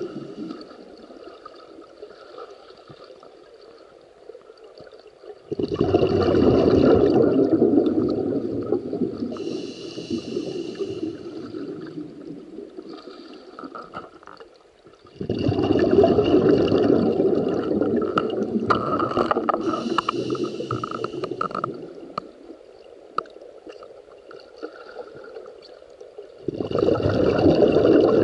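Scuba diver's breathing heard underwater: three long bursts of exhaled bubbles gurgling, starting about 6, 15 and 26 seconds in, with quieter hissing between them.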